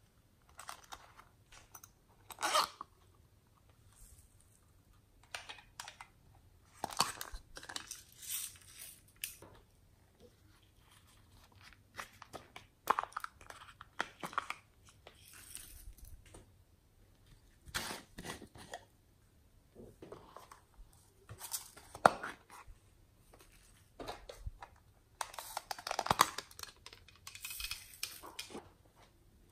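Small plastic pots of glitter and sequins being handled: lids clicking open and shut, and glitter shaken and sprinkled out onto slime. The sound is a scatter of irregular crackling clicks and rattles, with a denser run near the end.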